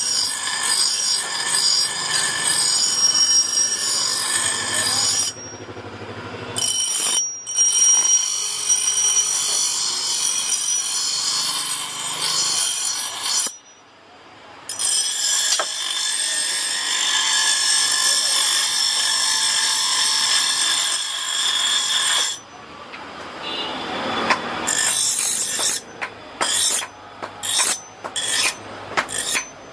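Steel khurpi (garden trowel) blade being ground on a spinning electric bench-grinder wheel: a steady, high-pitched grinding screech, broken by a few brief gaps. Near the end it turns into quick short strokes as the blade is touched to the wheel again and again.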